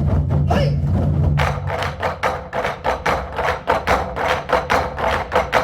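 Korean buk drums played by a drum ensemble: a dense rolling drum rumble, then, about a second and a half in, fast, even strikes with sharp clicking attacks, about five or six a second.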